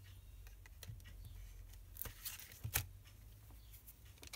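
Faint handling of patterned paper and card stock on a table: soft rustling with a few light clicks and taps, the clearest about two seconds in and again a little before three seconds.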